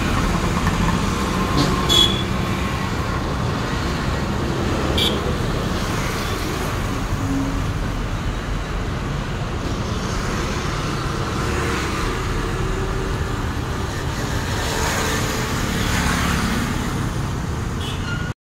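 Steady roadside traffic noise from passing vehicles, with a couple of short high toots about two and five seconds in.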